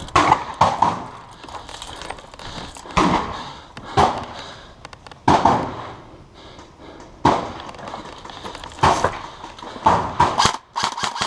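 Airsoft guns firing single shots, about ten spread irregularly, each with a short ringing tail. Near the end a rapid full-auto burst starts.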